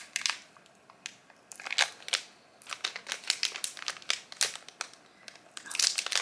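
Crinkling and tearing of plastic or foil packaging as a blind-box mystery pin package is worked open by hand, in irregular bursts with quieter gaps.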